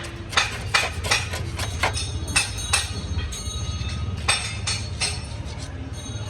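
Irregular sharp metal knocks and clinks, a few a second, over steady background music.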